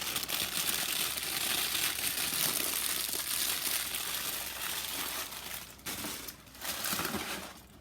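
Plastic cereal-bag liner crinkling as it is handled, in two stretches with a short break about six seconds in.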